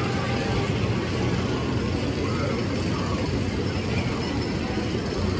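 Steady amusement park ambience: a constant low rumble and hum with faint distant voices mixed in.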